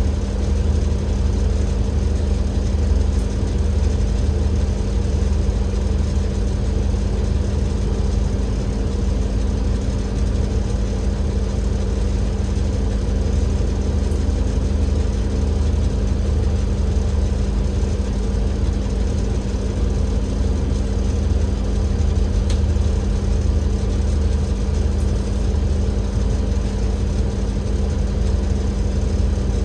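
Alexander Dennis Enviro500 MMC double-decker bus heard from on board, its Cummins L9 inline-six diesel running at a steady low drone with a constant hum. The drone stays even throughout.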